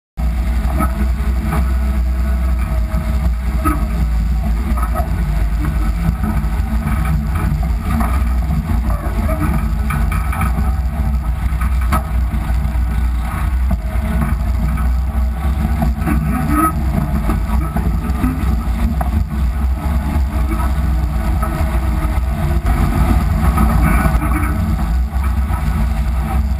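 IFA L60 4x4 truck driving, heard close under the chassis by the front wheel: a steady, heavy low rumble of engine and drivetrain mixed with tyre noise on wet gravel and water spraying off the wheel. It starts suddenly, with no let-up.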